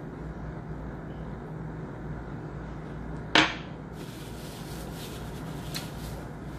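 A single short, sharp swish of paper about halfway through as a paper napkin is snatched up from the table, followed by faint rustling, over a steady low room hum.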